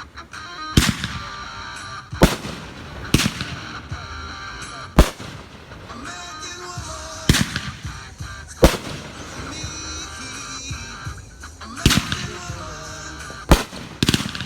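Fireworks going off: about nine sharp bangs, irregularly spaced a second or two apart.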